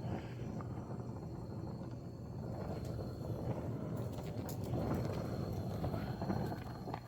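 Soldering torch flame burning with a steady low rushing, swelling slightly about two-thirds of the way through, while silver solder is melted onto brass.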